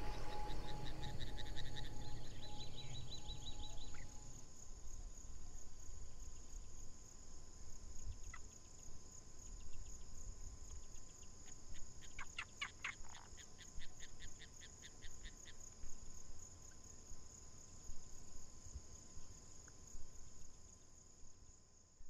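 Forest nature ambience: insects trill steadily and high-pitched throughout, with a low rush in the first four seconds and short runs of rapid chirps in the middle, before the ambience fades away near the end.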